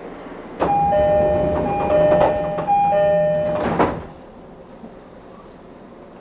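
Door-closing chime of a JR Tokaido Line commuter train: a two-tone chime sounds about three times as the sliding doors close, ending in a sharp thud as they shut.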